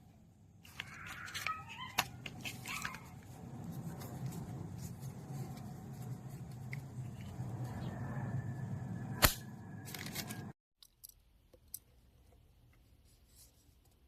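Handling noise: rustling with scattered small clicks and one sharp click about nine seconds in, cutting off suddenly after about ten and a half seconds, followed by a few faint ticks.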